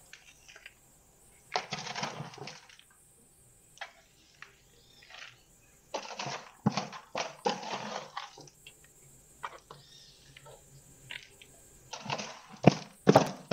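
Potting mix rustling and crunching as it is handled and pressed into a plastic pot around a plant's roots, with a few sharp clicks of the pot. It comes in three spells: about a second and a half in, around six to eight seconds in, and near the end.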